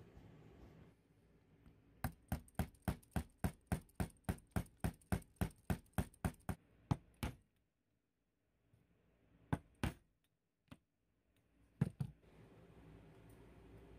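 A steady run of sharp metallic clicks, about four a second for some five seconds, from a wooden-handled hand tool worked against the metal reflector of a carbide miner's lamp, followed by a few single clicks.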